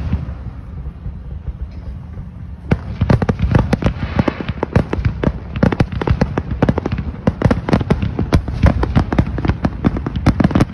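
Aerial fireworks shells bursting. A sharp bang right at the start, then from about three seconds in a dense barrage of many bangs in quick succession.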